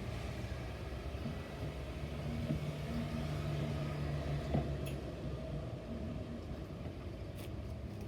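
A few soft pops of silicone pop-it fidget bubbles being pressed, under a steady low engine rumble with a hum that swells in the middle and then eases.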